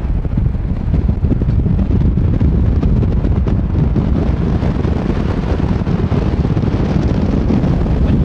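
Wind buffeting the microphone: a loud, steady, rough rumble with no pitch.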